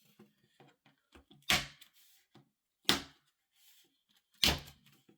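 Three sharp clacks of hard parts or tools being knocked or set down on a work surface while a graphics card cooler is taken apart, about a second and a half apart, with faint small handling clicks between them.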